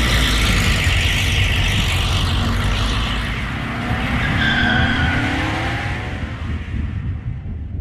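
Motor vehicle engine revving hard with a skidding, tyre-scrub noise; the engine's pitch rises in the middle, and it all fades away near the end.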